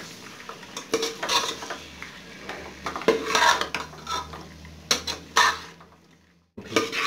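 Metal spoon scraping and clanking against a pressure cooker pot as cauliflower and potatoes are stirred and fried (the bhuna stage of aloo gobhi), in repeated uneven strokes. The sound drops out briefly shortly before the end.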